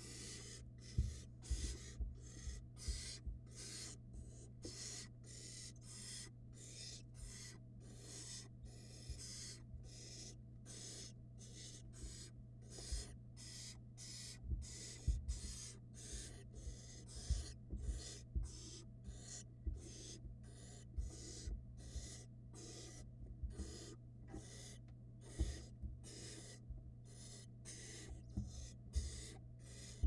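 Barn owl nestlings giving rasping hissing begging calls over and over, about two a second, the call they use to beg for food. Soft low thumps come from the birds shuffling in the nest box, over a steady low hum.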